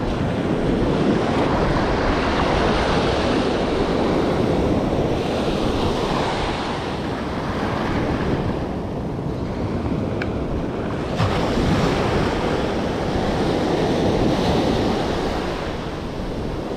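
Surf breaking and washing up a sandy beach, with wind buffeting the microphone; the wash swells and eases every few seconds.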